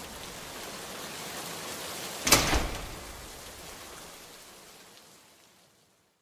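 Steady rushing noise with a sudden loud burst about two seconds in, then fading out to silence near the end.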